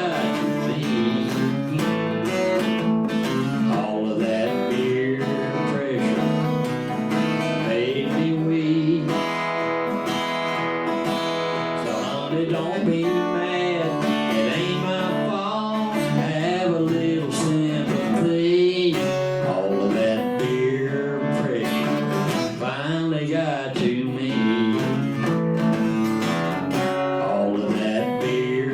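Live country song played on acoustic guitar, with a melody line wavering above the chords.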